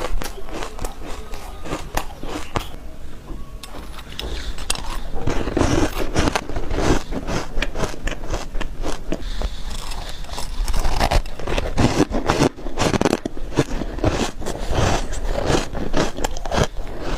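Soft shaved ice being bitten and chewed close to the microphone: dense, irregular crunching and crackling, with a brief lull about three seconds in.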